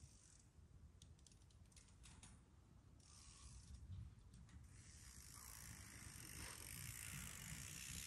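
Faint fat bike approaching on a snow trail, getting louder: a ratcheting freewheel hub clicking as the rider coasts, with a rising hiss of the tyres over snow in the second half.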